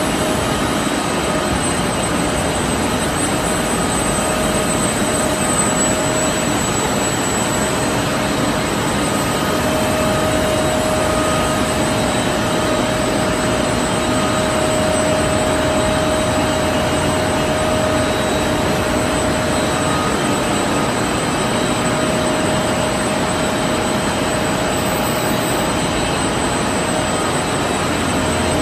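Open-width continuous washing machine for knit fabric running in a textile mill: a loud, steady mechanical rush with a few steady whining tones over it.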